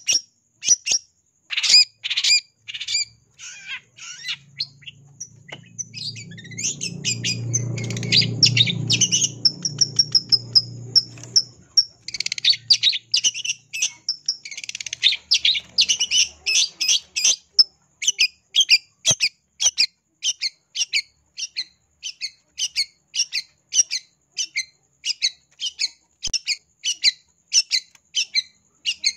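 Long-tailed shrike (cendet) calling: a long run of short, sharp notes, with dense chattering bursts near the middle and a steady series of about two notes a second in the second half. A low rumble swells and fades in the background during the first half.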